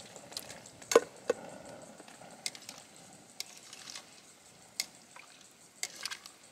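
Potatoes and corn dropped from a plastic bag into a metal pot of cooking yabbies, then a utensil stirring and knocking against the pot. A series of sharp knocks and clinks, the loudest about a second in, with more spread through the rest.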